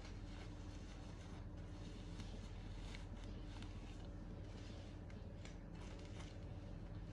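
Quiet room with a steady low hum, and faint rubbing and a few small clicks from cloth and a plastic feeding bottle being handled.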